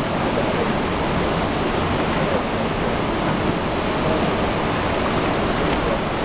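Steady, loud rush of river water pouring through the open gates of a lock-and-dam and churning below the piers.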